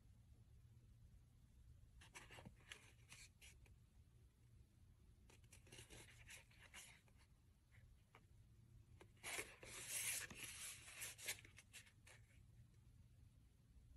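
Faint rubbing and scraping of hands sliding over and turning a cardboard box, in a few short patches, with a longer, louder stretch of rubbing about nine to eleven seconds in. A low steady hum lies underneath.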